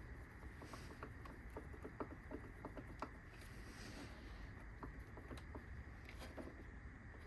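Faint, irregular light clicks and taps of small machine parts being handled and fitted by hand, over a low steady background hum.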